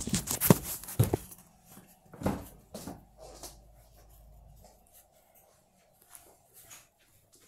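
Handling noise from a phone being carried and moved about: rustling and several sharp knocks in the first second or so, two more knocks about two and three seconds in, then only faint ticks.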